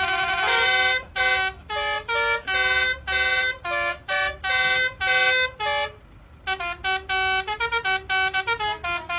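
Musical vehicle horn playing a tune: a long note, then a run of short toots at changing pitches, a brief pause about six seconds in, then a quicker run of notes.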